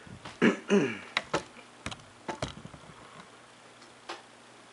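Two short vocal sounds from a man near the start, each falling in pitch, then several sharp clicks and taps over the next couple of seconds as the camera is moved.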